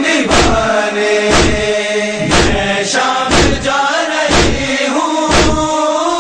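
A group of voices chants an Urdu noha, a Shia lament, in a slow, drawn-out melody. Rhythmic matam runs beneath it: sharp hand slaps about once a second, with lighter slaps in between.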